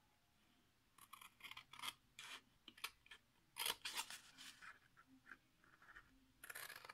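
Faint scissors snipping through a sheet of patterned scrapbooking paper, a run of short crisp cuts starting about a second in.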